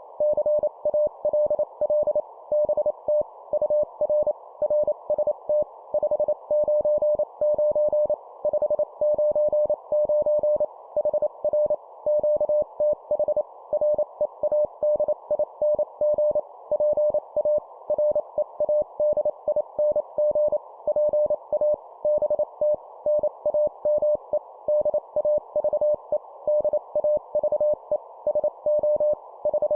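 Morse code (CW) sent at 25 words per minute: a single mid-pitched tone keyed on and off in rapid dots and dashes over a faint band of receiver hiss. It carries an amateur radio contact exchange of call signs, signal report, name and location.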